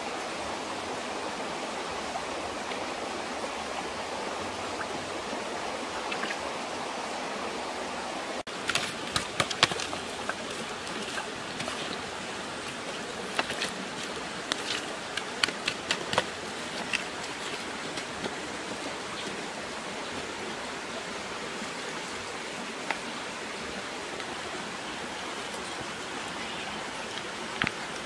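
Shallow stream running over rocks, a steady rushing wash of water. From about nine seconds in, a scatter of sharp snaps and clicks comes over it for several seconds.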